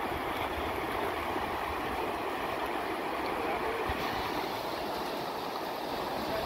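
Fast river rapids rushing over rocks: a steady, unbroken wash of water.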